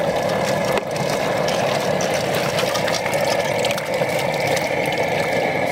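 A propane burner running under the boil pot with a steady rushing noise, with faint splashing as live crawfish are scooped out of a water-filled cooler with a metal strainer.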